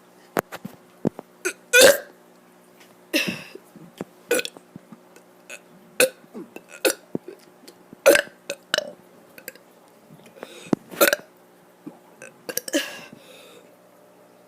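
A child burping on purpose, a string of short, sharp burps with a few longer drawn-out ones between, the loudest about two seconds in.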